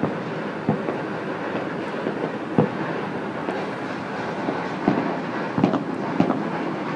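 Distant fireworks and firecrackers going off across the city: a continuous crackling rumble with irregular booms from aerial shells, about five or six of them, most close together in the second half.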